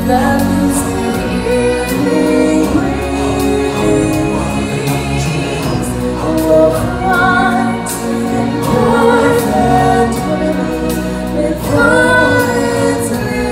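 A choir and solo voices singing a song over musical accompaniment with a steady bass and percussion.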